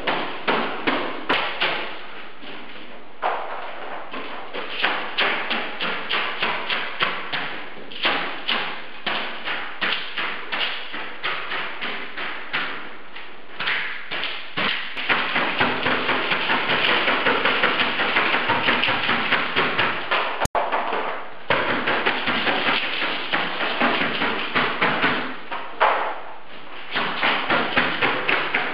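A paint-laden tool lashing against a wall in quick repeated strikes, several a second, coming in flurries with brief pauses and a denser, near-continuous run in the middle.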